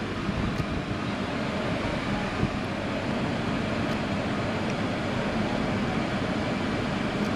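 Steady hum and hiss heard in the cab of a 2020 Toyota Tacoma while all four tires are aired down together through an onboard air manifold.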